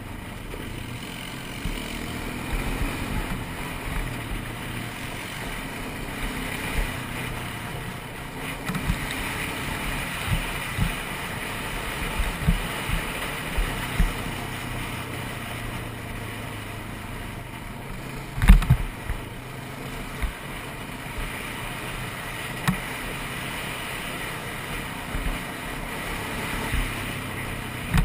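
ATV engine running steadily while riding a trail, with short thumps from bumps in the ground and one hard knock about two-thirds of the way through.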